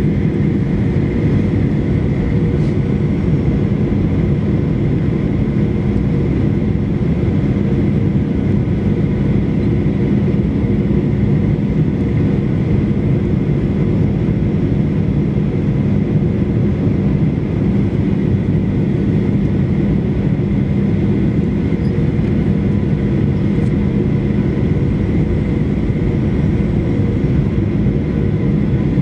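Steady cabin noise of a Boeing 737-800 on approach, heard from a window seat beside the wing: the CFM56 jet engines' drone and the rush of airflow, with a steady low hum and a faint higher whine.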